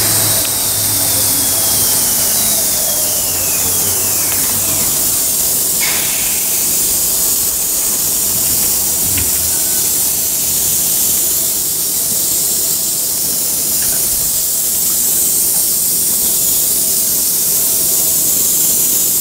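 Amsterdam metro train pulling in and braking to a stop, its electric motors giving several falling whines over the first few seconds. It then stands at the platform with its doors open, under a steady hiss.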